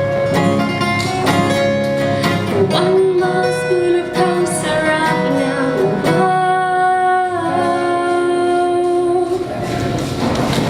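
A woman singing to acoustic guitar, closing the song on long held notes that then ring out. Audience applause starts near the end.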